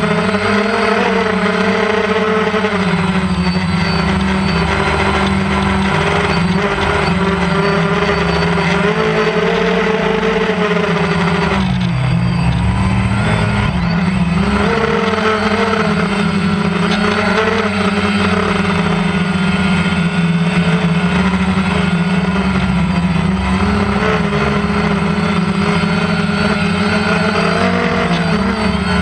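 DJI Phantom quadcopter's propellers and motors buzzing steadily, the pitch wavering as the motors work against gusty wind and dipping briefly about twelve seconds in. Wind rumbles on the microphone underneath.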